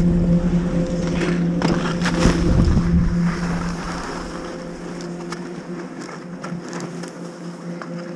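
Skis scraping and sliding over snow while skiing off a chairlift, with wind on the microphone and a steady low hum underneath. The scraping and rumble are loudest for the first three seconds, then settle to lighter, scattered scrapes.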